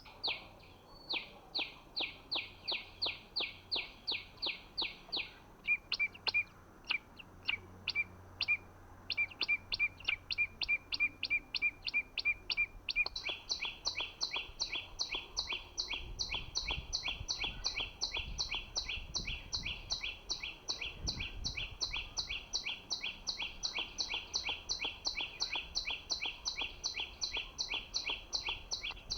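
Small songbird call: short high chirps repeated in a steady run of about three a second. About six seconds in it breaks into sparser sharp notes, then returns as a denser, fuller run. A low rumble comes in about halfway through.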